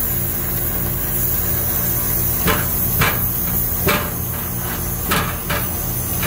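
Sharp metallic clicks and knocks from a ratcheting HVAC service wrench working the stem of an air-conditioning condenser's service valve, opening it after the line set has been evacuated. About five clicks come at uneven intervals over the second half, over a steady low machine hum.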